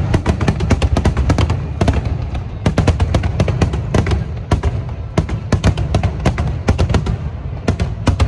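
Fireworks show: rapid, overlapping bangs of aerial shells bursting, several a second with brief lulls, over a low rumble, with music playing underneath.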